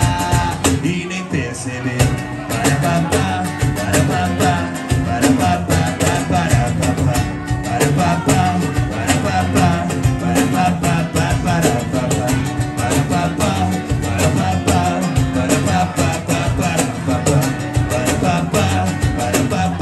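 Live acoustic band playing a song: cajón keeping a steady beat, electric bass and strummed acoustic guitar, with male voices singing.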